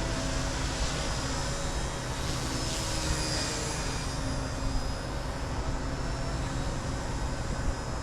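XK K110s collective-pitch micro helicopter in flight, its brushless motors and rotors giving a steady high whine that wavers a little in pitch, with wind rumbling on the microphone.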